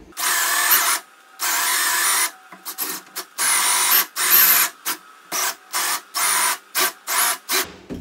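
Cordless drill driving a hole saw into a door, run in stop-start bursts: about a second each at first, then a quick run of short pulses in the second half. The pulsing is the cut nearing the far face, feathered so the drilling stops as soon as the pilot bit pokes through.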